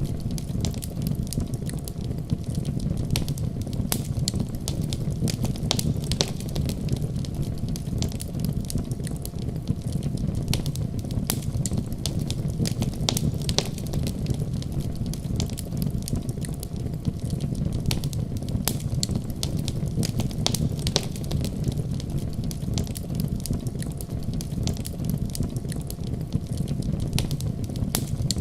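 Wood fire in a fireplace crackling, with frequent irregular sharp pops and snaps over a steady low rumble.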